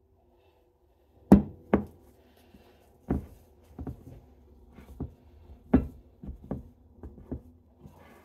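Wooden spoon knocking and scraping against a glass mixing bowl while stirring stiff cookie dough: about ten irregular knocks, the loudest about a second in and again near six seconds.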